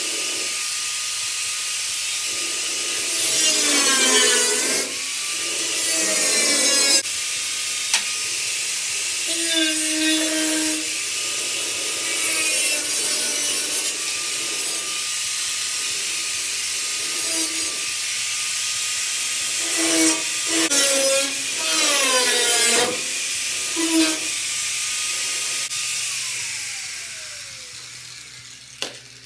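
Handheld power grinder working the sheet metal of a truck's wheel arch: a steady motor whine with several louder rough passes as the disc bites the metal. Near the end it is released and the whine falls away as the motor spins down.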